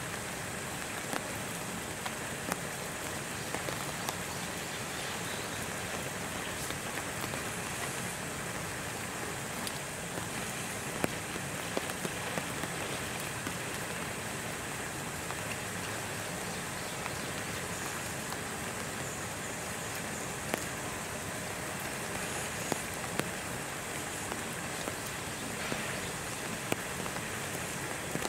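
Steady rain falling, with scattered sharp drop clicks.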